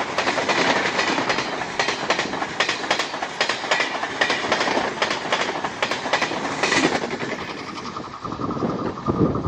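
Express train's LHB passenger coaches passing close by at speed: a steady rolling rumble with rapid clickety-clack of wheels over rail joints. Near the end the sound changes abruptly to a quieter, lower rumble.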